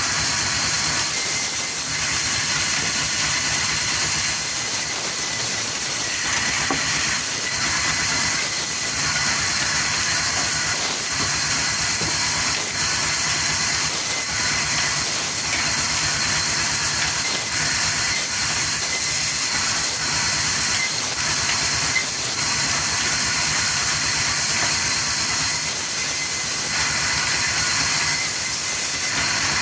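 A machine running steadily with a strong, even hiss and a fast low pulse underneath, unchanging throughout.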